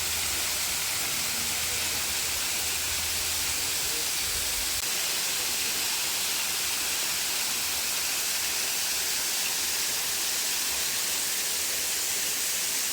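Waterfall rushing: a loud, steady hiss of falling water, with a low rumble underneath that drops away about five seconds in.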